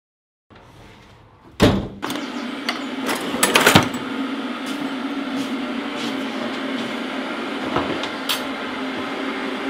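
A sharp knock about a second and a half in, then a steady mechanical hum with a low drone, broken by scattered light clicks and taps.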